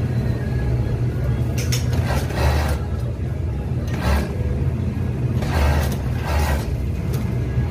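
Industrial overlock (serger) sewing machine: its motor hums steadily, broken by several short bursts of fast stitching as the seam is run through.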